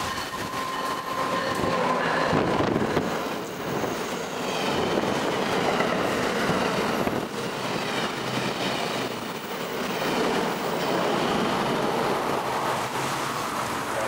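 Amtrak electric-hauled passenger train, a locomotive and stainless-steel Amfleet coaches, passing at track speed: a steady rush of wheels on rail, with a thin high ringing tone through the middle.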